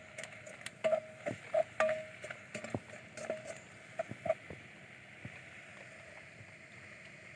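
Pot of clams boiling over an open wood fire: a faint steady bubbling hiss, with scattered crackles and clicks in the first few seconds.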